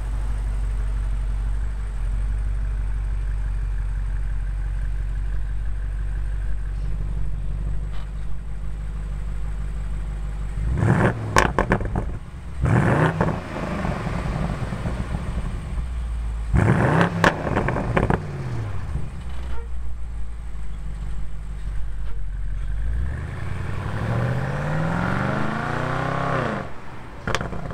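BMW M850i's twin-turbo 4.4-litre V8 and exhaust, running with a steady low rumble, then blipped twice, about 11 and 17 seconds in, each rise and fall in pitch opening with a few sharp pops. Near the end it pulls through a longer rise in pitch.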